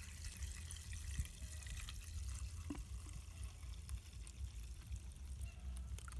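Two-stroke fuel mix trickling faintly from a plastic bottle into a brush trimmer's plastic fuel tank.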